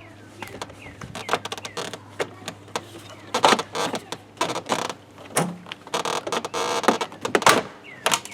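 Plastic door trim panel being handled and fitted onto a pickup truck door: a run of clicks and knocks with a few stretches of scraping and rubbing.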